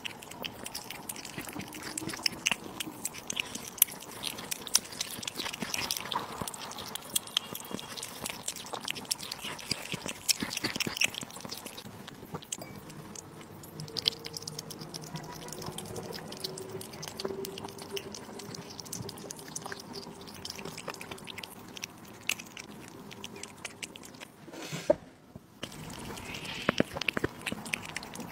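Kitten chewing raw meat strips and licking, with many small, wet, rapid clicks of chewing and smacking.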